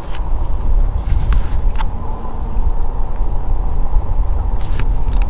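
Wind buffeting the microphone while riding an e-bike, a loud steady low rumble, with a few light clicks along the way.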